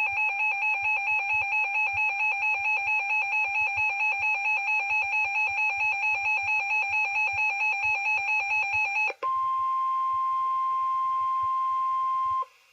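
Electronic alert tones from a weather radio broadcast. A warbling, pulsing tone runs about four pulses a second, and about nine seconds in it switches to a steady single-pitch tone near 1 kHz, the NOAA Weather Radio warning alarm tone, which stops shortly before the end.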